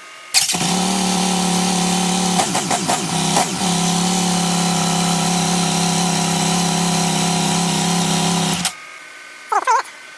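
Yamaha XT1200Z Super Ténéré's parallel-twin engine catching at once, with no hard start, and running steadily for about eight seconds. Its pitch wavers briefly about two to three seconds in, and it cuts off abruptly near the end as it is switched off.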